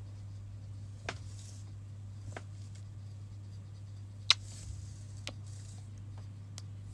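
Close-miked kisses: about five short, sharp lip smacks spaced a second or so apart, the loudest about four seconds in, over a steady low hum.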